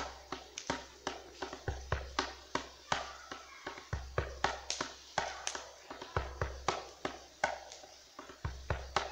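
Hand drum struck by hand in a quick, fairly steady rhythm of about three beats a second, each beat a sharp slap with a deep boom under it.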